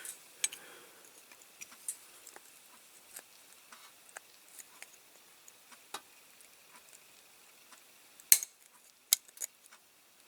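Small hand tools, pliers among them, clicking and clinking against a metal diecast toy car body, at scattered intervals. A sharper metal clink comes about eight seconds in, followed by two more within the next second and a half.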